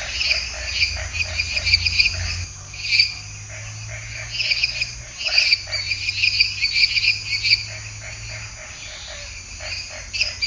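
Toads calling: several overlapping rapid pulsed trills that come and go in short bursts, over a low hum that fades out about eight seconds in.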